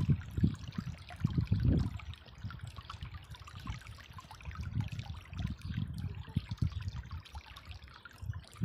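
A shallow stream trickling over rocks, with irregular low rumbles and thuds louder than the water, strongest in the first two seconds.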